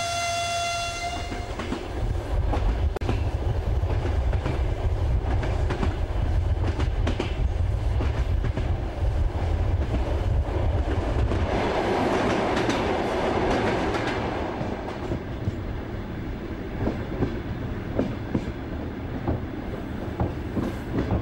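A train horn sounds for about a second and a half at the start, then a moving train runs with a steady low rumble and clicking wheels over the rail joints. About halfway through, a rushing swell of noise lasts a couple of seconds.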